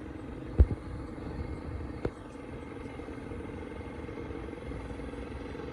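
Boat engine running steadily, with two sharp knocks, the first about half a second in and the second about two seconds in.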